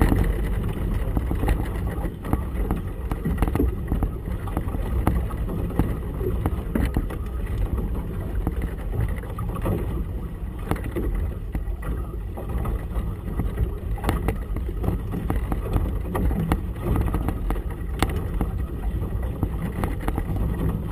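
Steady low rumble of wind and choppy water around a small motorboat on open harbour water, with a few sharp knocks scattered through it.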